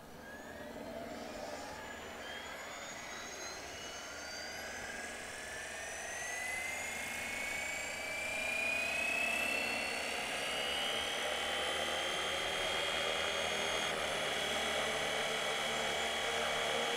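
Electric RC helicopter, a FlyWing FW450 V3, spooling up on the ground: its motor and rotor give a whine that rises steadily in pitch and loudness for about twelve seconds, then holds steady at flying head speed.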